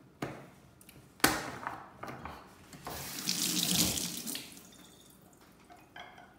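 A sharp knock about a second in, then a kitchen tap running into the sink for about a second and a half, fading out before the end.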